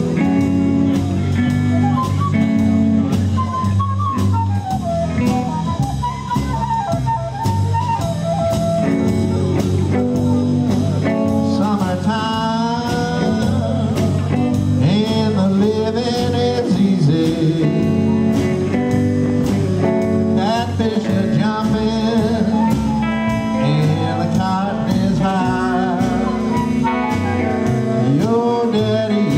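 Background music: a blues-flavoured band song with singing and guitar over a steady beat.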